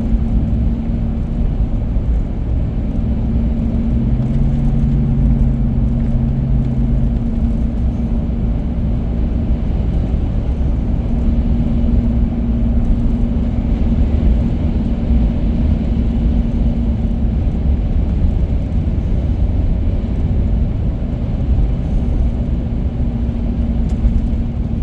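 Car being driven: steady low road and engine rumble, with a low hum that fades out and returns a few times.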